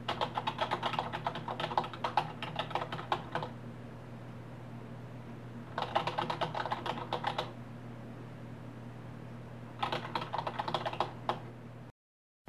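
Computer keyboard typing: three bursts of rapid key clicks with pauses between them, over a steady low hum.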